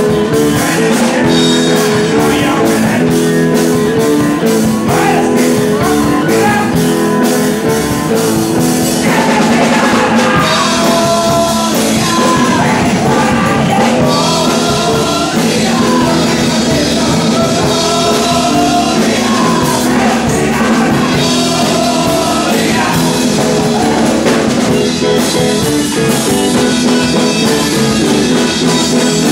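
Live rock band playing loud: electric guitars over a steady drum beat, with a voice singing over it from about nine seconds in.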